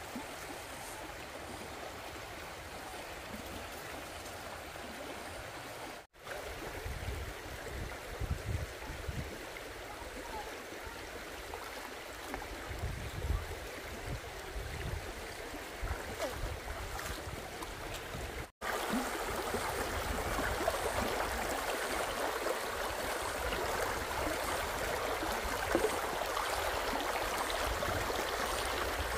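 Stream water running steadily, broken by two momentary dropouts and a little louder after the second one, with some low rumbling partway through.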